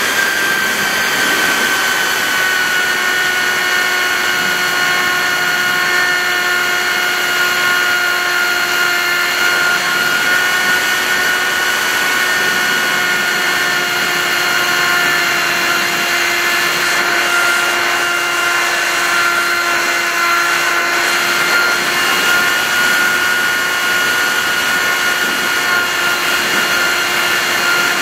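Radio-controlled plane's motor and propeller heard from a camera on board, running as a steady whine with a stack of overtones, its pitch easing slightly lower in the first second and then holding. Wind rushes over the airframe and microphone underneath.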